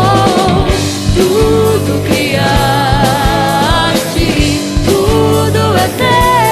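Christian gospel song with a sung melody and vibrato over a full band backing of sustained chords and drums.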